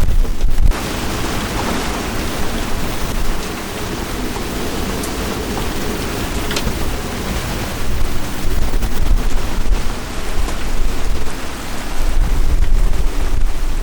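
Heavy wind and rain of a passing cold-front squall, a dense steady rush with a strong low rumble in the gusts at the start and again near the end.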